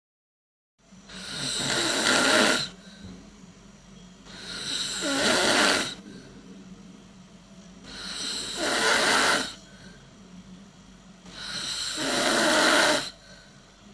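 A person snoring: four loud snores about three and a half seconds apart, each building over a second or so and breaking off sharply, with a faint steady low hum between them. The snoring starts out of total silence about a second in.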